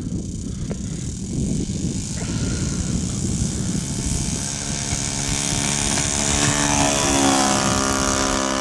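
Single-cylinder Saito FA-62B four-stroke glow engine of a radio-controlled P-51B Mustang model, running hard on its takeoff run across grass. It grows steadily louder as the plane draws nearer.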